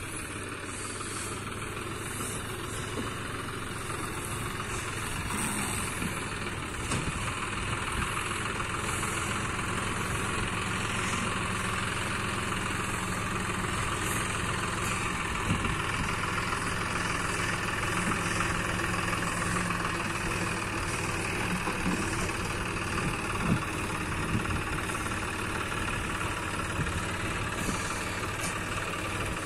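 John Deere farm tractor's diesel engine running steadily under load as it pulls a loaded trailer, getting a little louder from about six seconds in as it draws closer.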